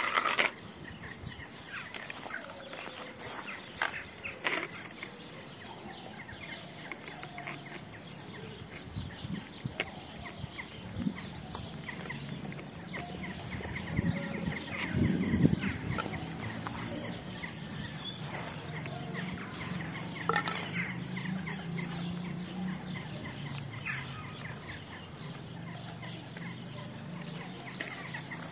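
A cat eating wet cat food from a plate: many short chewing and smacking clicks, with birds calling in the background.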